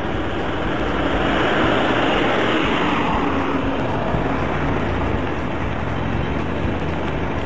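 A vehicle drives past on the road. Its noise swells, falling in pitch as it passes about two seconds in, then eases away over a steady low rumble.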